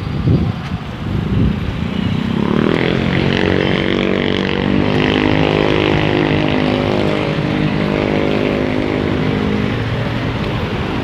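Street traffic at an intersection: a truck's engine runs close by as a steady drone that starts about two seconds in, with motorcycles and cars passing.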